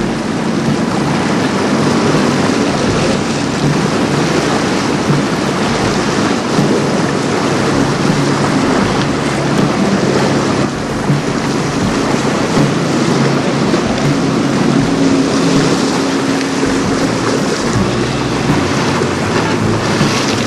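Strong wind buffeting the microphone over choppy water, a steady rushing noise, with a faint low hum underneath.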